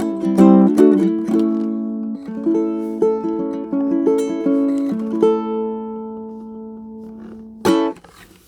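Ukulele with a torrefied spruce top and mahogany back and sides, played acoustically: a run of plucked notes and chords rings out and slowly fades, then one short strum near the end is quickly damped.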